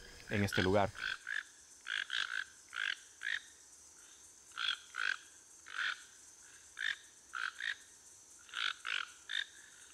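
Toucans calling: an irregular string of short, croaky calls, often two in quick succession, about one call or pair every second.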